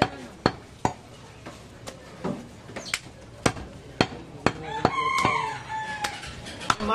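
Large cleaver chopping goat meat on a wooden log block: a steady run of sharp chops about two a second. A drawn-out, wavering call sounds over the chopping about five seconds in.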